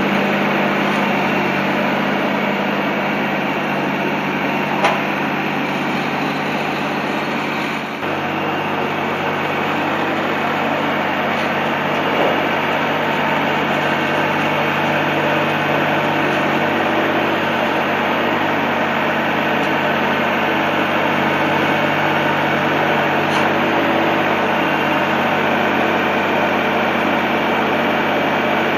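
Tractor engine running steadily, its note shifting slightly about eight seconds in, with a faint clunk now and then.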